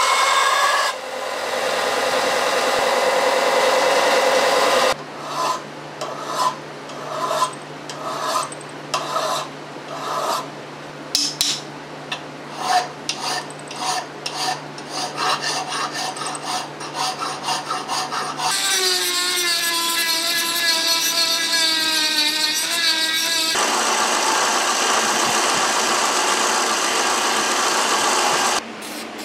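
Steel trigger guard blank being shaped: first a steady grind against a belt grinder. Then hand-filing strokes, about one a second. From about 18 seconds in, a steady grinding hiss from a small sanding drum spinning in a lathe, with a wavering whine for its first few seconds.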